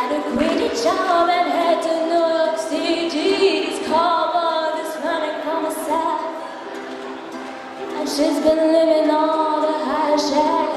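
A woman's voice singing long, slightly wavering held notes over a lower sustained part. It eases off for a couple of seconds past the middle, then swells again.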